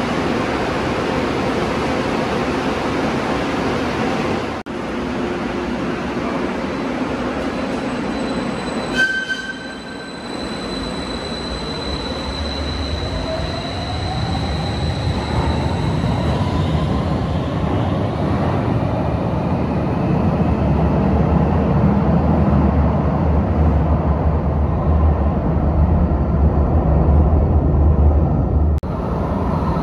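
Siemens light rail cars running through stations in several short takes: a motor whine rising in pitch as a train pulls away, then a low rumble that builds as a train passes close. A short ringing tone sounds about nine seconds in.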